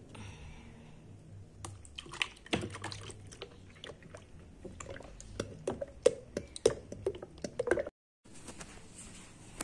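Thick liquid fabric softener poured from a plastic bottle into a plastic dispenser jug, glugging in short bursts toward the end, with clicks and knocks of the plastic containers being handled.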